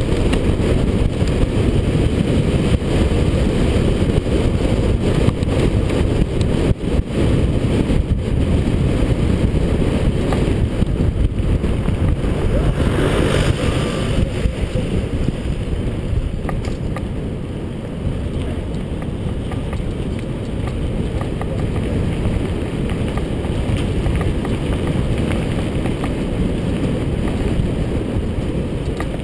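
Wind buffeting the microphone of a helmet-mounted camera on a bicycle riding fast down a paved road: a loud, steady low rumble, with a brief hissier patch about thirteen seconds in.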